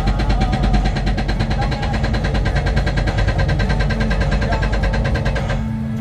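Hydraulic breaker on an excavator hammering into rocky ground, heard from inside the cab: a rapid, even rattle of blows over the steady run of the excavator's diesel engine. The hammering stops about five and a half seconds in, leaving the engine running.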